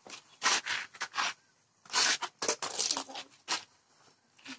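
Velcro straps on an inline skate being ripped open and pressed shut, a run of about five short ripping sounds with brief gaps.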